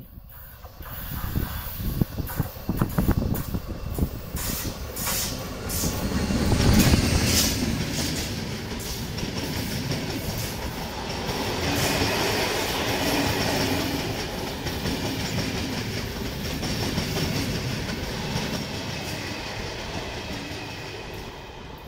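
Locomotive-hauled passenger train of České dráhy coaches passing close by. Sharp clicks from the wheels come as it approaches, the passing locomotive is loudest about seven seconds in, then the coaches roll past with a steady rumble that fades near the end.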